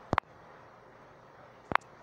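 Taps on a phone's touchscreen keyboard while typing: a quick pair of sharp clicks just after the start and another pair near the end, over faint hiss.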